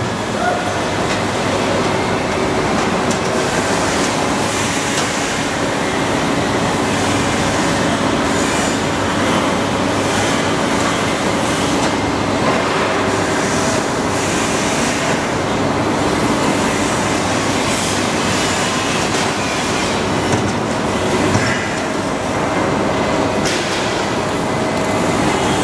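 A 1992 Amada Vipros 357 CNC turret punch press running: a loud, continuous mechanical clatter over a steady hum.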